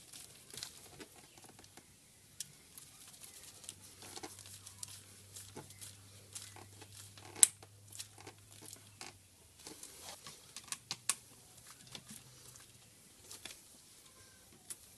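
Screwdriver tightening hose clamps on a rubber fuel hose: scattered small clicks and scrapes of metal on metal and a rubber-gloved hand, with one sharp click about seven seconds in. A faint low hum runs underneath for the first nine seconds or so.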